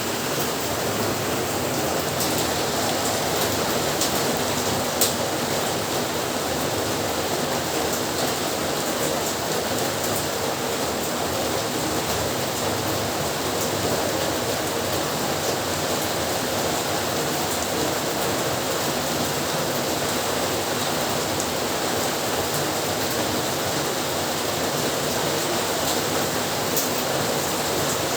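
Heavy rain falling steadily as an even hiss, with a few sharp drip ticks, the clearest about five seconds in.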